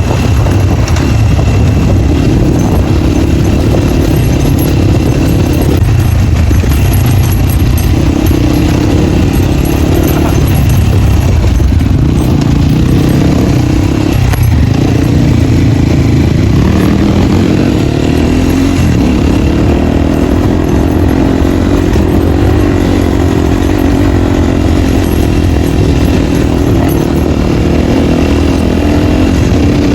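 Dirt bike engine running under way with the dB killer removed from its exhaust, loud and steady, with a few brief dips in the engine note as the throttle comes off and goes back on.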